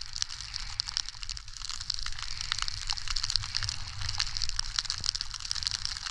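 Snow hissing and crackling under skis or a snowboard sliding downhill, a steady scraping hiss broken by many small crunches.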